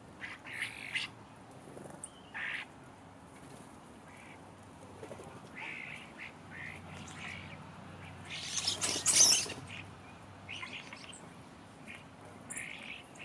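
Common starlings calling: short, harsh squawks and chatters, with one louder, longer harsh burst about nine seconds in.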